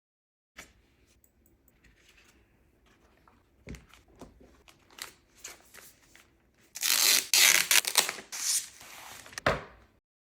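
Keyboard packaging being unboxed: soft handling with a few light clicks and taps, then about two seconds of loud tearing or peeling of packaging material, and a single thump near the end.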